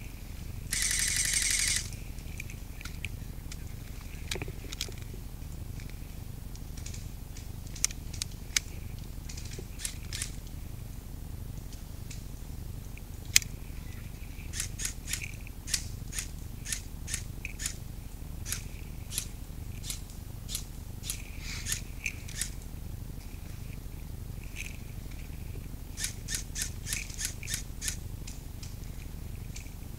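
Airsoft gunfire: a short full-auto burst about a second in, then scattered single sharp cracks and quick strings of them, several a second near the end.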